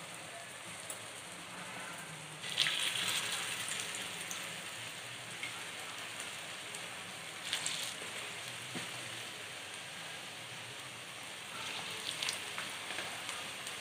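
Potato vada patties shallow-frying in oil on a flat pan: a steady sizzle that flares up as fresh patties are laid in, about two and a half seconds in, near eight seconds and again around twelve.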